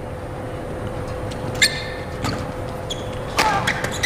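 A badminton rally: rackets striking the shuttlecock in sharp single hits, with short squeaks of players' shoes on the court floor, the hits coming closer together near the end.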